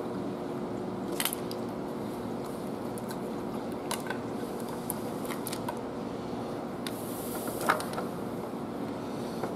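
Scattered light metallic clicks and knocks of steel rocker levers being shifted by hand as a rocker shaft is seated on a Cummins ISX diesel cylinder head, the sharpest knock near the end, over a steady background hum.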